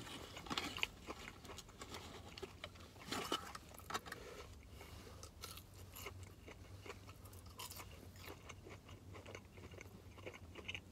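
A person chewing breaded fried cheese curds with sriracha in the breading, with soft, irregular crunches.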